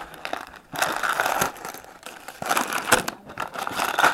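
Crinkling and rustling of packaging being handled, in irregular bursts.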